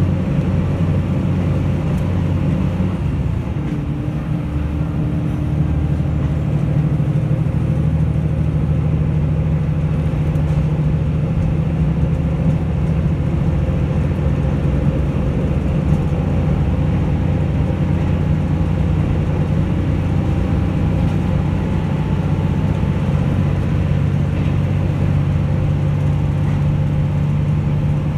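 KiHa 75 diesel railcar running at speed, heard from inside the car: a steady low engine drone under the rolling noise of wheels on the rails, easing briefly about three to four seconds in and then holding steady.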